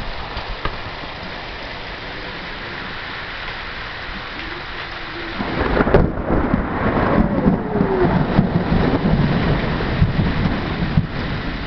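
Steady rain falling, then about halfway through a sudden loud thunderclap breaks and rolls on as a long rumble of thunder.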